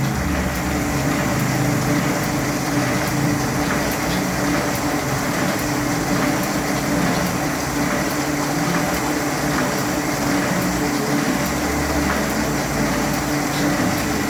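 Toko 7000 offset printing press running steadily, a constant mechanical hum with a faint regular tick a little faster than once a second as it cycles.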